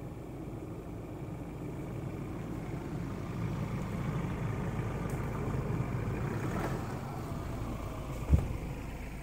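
Ford Ranger Raptor pickup's engine running at crawling speed as the truck passes close by over a rutted dirt trail, growing louder through the middle and easing off again. A single sharp thump about eight seconds in.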